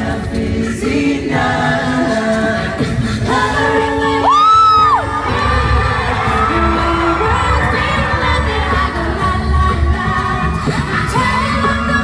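Live a cappella group singing in layered voices with no instruments. About four seconds in, a high voice slides up to a held note and back down, and a deep vocal bass line runs underneath through the middle of the stretch.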